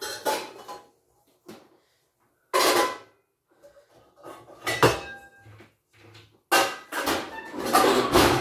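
Dishes and metal lids clattering and clinking as they are taken out of a dishwasher rack and handled, in four separate bursts with short pauses between them. The longest and loudest run of clatter comes near the end.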